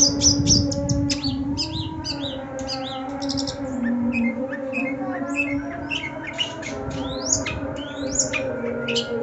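Caged long-tailed shrike (cendet) in full song: a fast, varied run of sharp chirps, rattles and rising and falling whistled notes. A steady low hum lies underneath.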